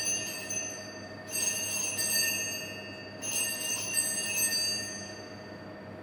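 Altar bell rung three times at the elevation of the host after the consecration. Each ring is a bright, high shimmer about two seconds apart that dies away before the next.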